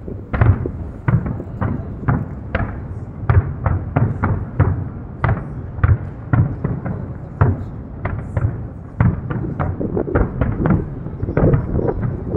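Fireworks shells bursting in quick, irregular succession, about two sharp bangs a second over a continuous rumble.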